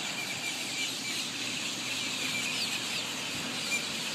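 A large flock of birds calling: many short, overlapping chirps, with now and then a short falling whistle.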